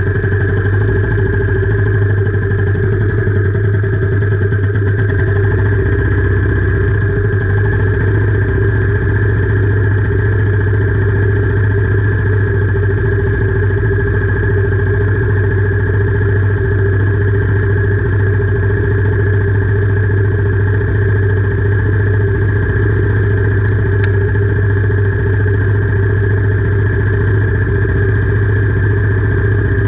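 Royal Enfield Meteor 350's single-cylinder engine running steadily, with no revving.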